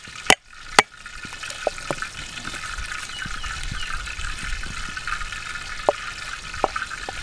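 A cleaver knocking on a wooden chopping board while crushing garlic cloves: two sharp knocks within the first second, then a few light taps and ticks of the blade as the cloves are trimmed and peeled. A steady hiss like trickling water runs underneath.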